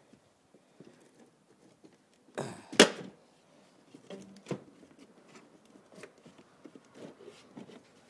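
Plastic tail light of a 1984 Pontiac Fiero being wiggled loose from the body by hand: scattered light clicks and rubbing, with a brief scrape and then a sharp loud knock about three seconds in, and a smaller knock a couple of seconds later.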